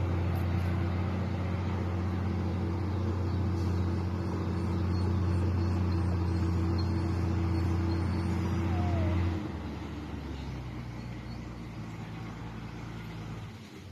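Isuzu 6BG1 turbo-diesel engine of a sugarcane truck running steadily under load. About nine seconds in it turns quieter and changes pitch, then fades out near the end.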